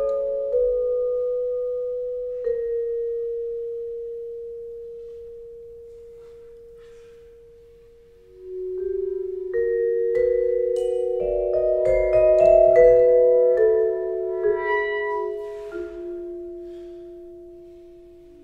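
Clarinet and vibraphone duo. A single vibraphone note is struck and left to ring, dying away slowly over several seconds. Then the clarinet swells in on a held low note while the vibraphone strikes a cluster of higher ringing notes above it, and both fade near the end.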